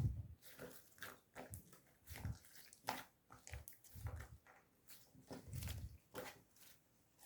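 Marbled slime being squeezed and kneaded by hand: irregular wet clicks and small popping squishes, with a few soft, low thuds.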